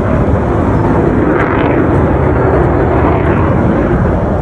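Loud jet noise from the U.S. Air Force Thunderbirds' F-16 Fighting Falcon fighters in flight, a steady roar that swells in the middle and eases slightly near the end.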